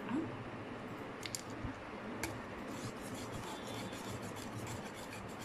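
A wire balloon whisk beating wet banana batter in a plastic bowl: a few scattered clicks, then from about three seconds in a quick, steady run of scraping ticks as the wires strike the bowl and the batter.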